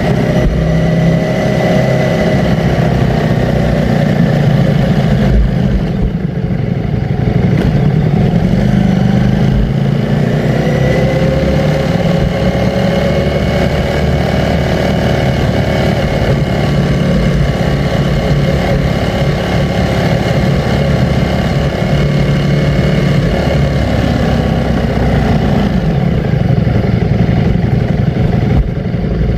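Ducati Streetfighter V4 S's V4 engine running steadily. Its pitch sags over the first few seconds, climbs again about ten seconds in, then holds even.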